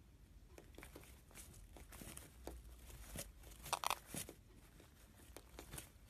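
Faint scattered clicks and scratches of a small parrot's beak and feet as it nibbles at another bird on a windowsill, with a louder cluster of clicks about four seconds in.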